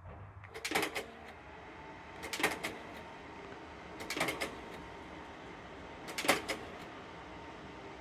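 Kodak Ektapro slide projector changing slides on remote command: a short clatter of clicks from the slide-change mechanism four times, about every two seconds, over a faint steady hum.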